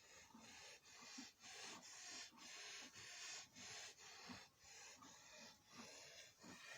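Faint, rhythmic breathing of a cow with viral pneumonia, about two breaths a second. This is fast, laboured respiration from a sick animal rather than a cough.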